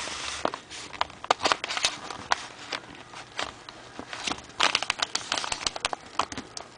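A paper mailing envelope being cut with scissors and then picked at by fingers along its tight edge: a run of paper crackling and crinkling with sharp clicks, busier in the second half.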